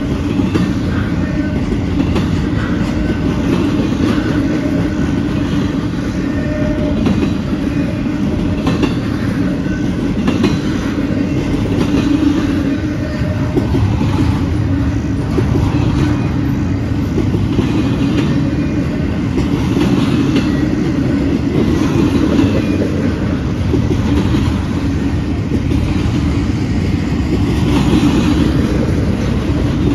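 Double-stack intermodal well cars rolling past: a steady rumble and rattle of steel wheels on the rails, with irregular clicks as the wheels cross the track joints.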